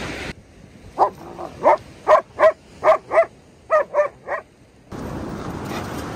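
A dog barking in a quick series of about ten short, sharp, high barks. Before and after the barking there is a steady rushing noise.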